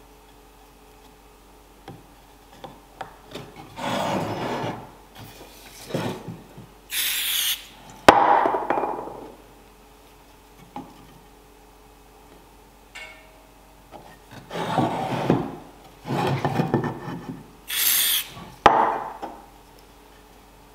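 Oak blocks scraped and pressed against oak boards several times. There are two short hisses from an aerosol spray can, about seven and eighteen seconds in, and each is followed by a sharp click.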